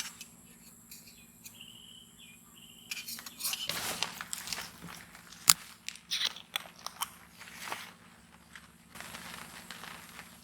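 Irregular crunching and rustling handling sounds with a few sharp clicks, busiest in the middle, over a faint steady low hum.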